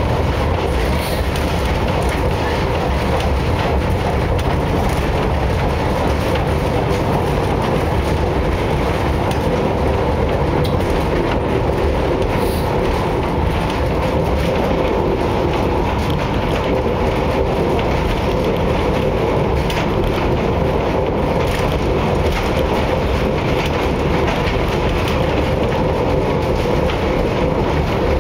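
Funicular car running along its rails: a steady, even rumble of wheels on track, with a faint steady hum running through it.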